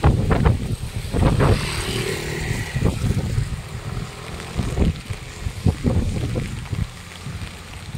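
Strong, gusty wind buffeting the microphone in low, irregular rumbles. A passing motor vehicle's engine hums briefly about two seconds in.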